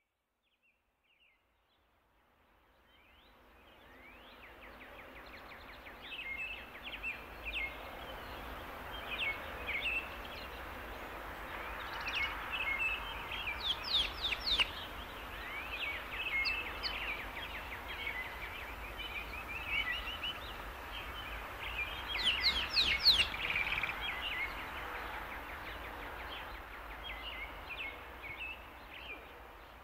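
Birds chirping and calling in quick series over a steady background hiss of outdoor ambience. It fades in over the first few seconds, with the busiest bursts of calls in the middle and about three-quarters of the way through.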